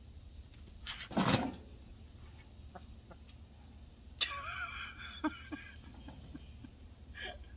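Backyard chicken clucking, with one drawn-out squawking call about four seconds in and a short call near the end. A short, sudden noise comes about a second in.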